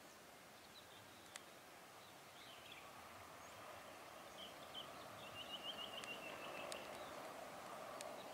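Birds chirping over faint outdoor ambience, with a quick run of chirps about five seconds in. Under them, a faint drone grows slowly louder from about halfway: a distant diesel-hauled container freight train approaching.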